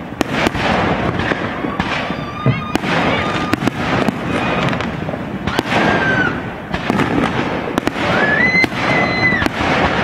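Fireworks display: a dense run of sharp bangs and pops from bursting aerial shells over a constant crackle. A few high whistles are held through it, the longest near the end.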